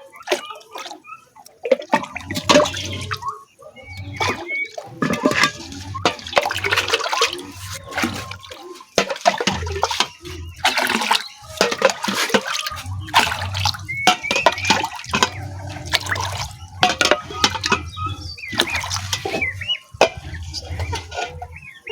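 Cinnamon-leaf infusion being poured and splashing into a container, in irregular spurts with clatter from handling the vessels.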